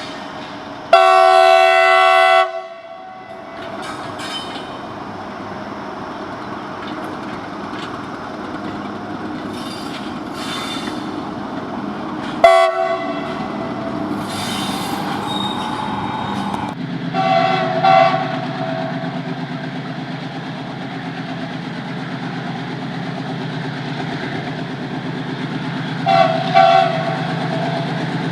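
Indian Railways locomotive horn sounding several blasts over the steady rumble and clatter of a moving train: one long loud blast about a second in, a short sharp one near the middle, and two short double blasts later. A low steady engine drone comes in about two-thirds of the way through.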